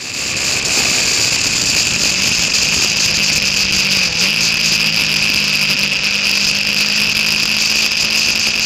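KTM 690 Duke's single-cylinder engine running at steady revs on track, heard from a camera mounted on the bike under heavy wind rush. The engine pitch dips and recovers briefly about four seconds in.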